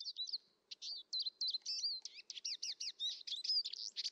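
Birds chirping: a run of quick, high chirps, sparse at first and crowding into a dense chatter from about two seconds in.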